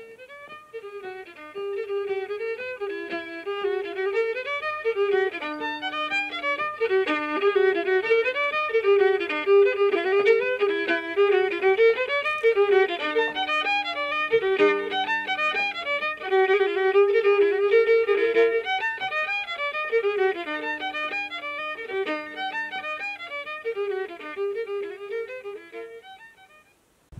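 Background fiddle music: a lively tune with many quick notes over a few lower held notes, fading out near the end.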